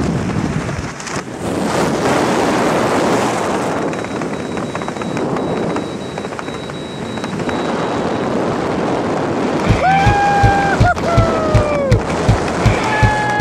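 Wind rushing over the microphone during a skydive descent. About ten seconds in, music with a steady beat and sliding notes comes in.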